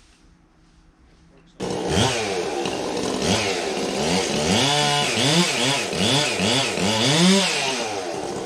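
Chainsaw starts up loud about a second and a half in and is revved up and down over and over, cutting off a branch of the felled tree. Near the end it settles into a steadier run.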